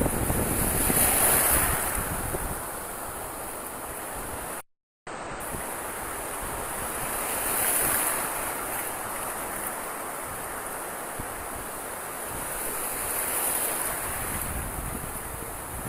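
Small waves washing in over shallow beach water, the surf swelling and ebbing three times, with wind rumbling on the microphone. The sound cuts out completely for a moment about five seconds in.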